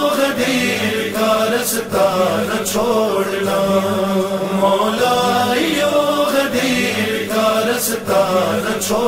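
Voice chanting an Urdu manqabat, a devotional poem about Ali, in a long drawn-out melody between the sung couplets. Sharp percussive beats come in twice, in pairs about a second apart.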